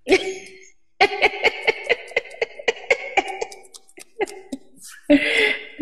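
A woman laughing: a brief burst, then a long run of short pitched pulses at about five a second, closing with a breathy gasp near the end.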